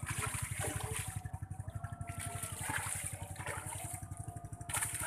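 Hooked patin (pangasius catfish) thrashing and splashing at the pond surface in bursts, over the steady throb of a small engine running throughout.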